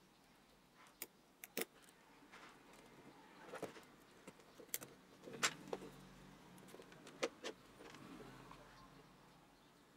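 Scattered small clicks and taps of metal and hard plastic as a cordless drill's motor is handled and pried apart with a flat metal tool.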